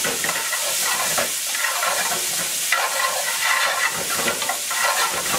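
Diced onions and garlic sizzling in butter in a hot skillet while metal tongs stir them, with frequent light clicks and scrapes of the tongs against the pan. The aromatics are being sweated to release their flavour.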